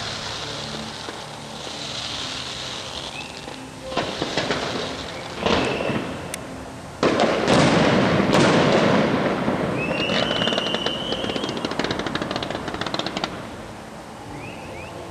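Fireworks display: aerial shells bursting with sharp bangs about four, five and a half and seven seconds in, the one at seven seconds loudest with a long rumbling tail. Then a stretch of rapid crackling from crackling stars, with a whistle over it.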